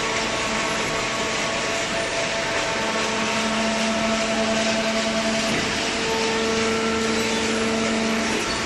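Paper baler machine running steadily: a constant mechanical hum and hiss with a few steady tones that swell and fade now and then.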